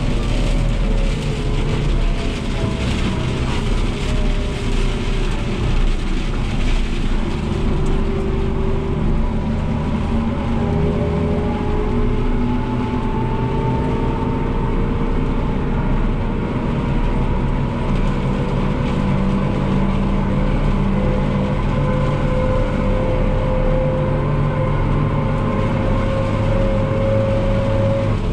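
New Holland TM165 tractor's six-cylinder diesel engine running steadily on the road, heard from inside the cab, with a whine that slowly rises in pitch.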